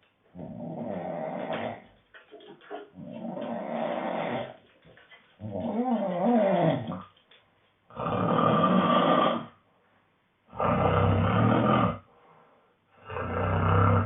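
A man snoring in his sleep: six snores, each about a second and a half long and coming about every two and a half seconds. The later snores are louder and deeper.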